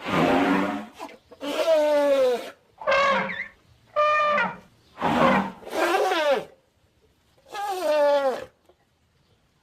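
Series of about seven creature calls made as sound effects for Archaeobelodon, an extinct elephant relative: short, pitched, trumpet-like calls, most sliding down in pitch and one sliding up.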